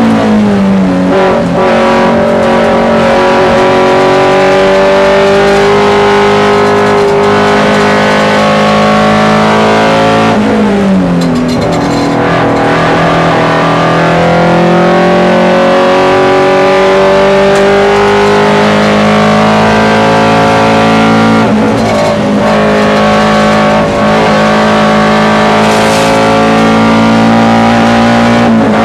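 Alfa Romeo Sud Sprint's flat-four boxer engine pulling hard under full throttle, heard from inside the stripped race car's cabin. Its pitch climbs slowly through each gear and drops sharply a few times as the driver lifts and shifts for the bends.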